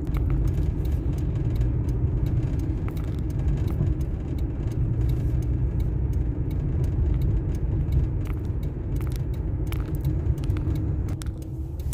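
Inside a car driving in city traffic: steady low engine and road rumble with a constant hum, and scattered faint clicks and rattles.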